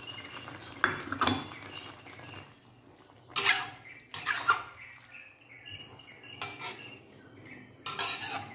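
Metal spatula scraping and clanking against an aluminium wok while stirring vegetables, in about six short, irregular strokes, the loudest about three and a half and eight seconds in.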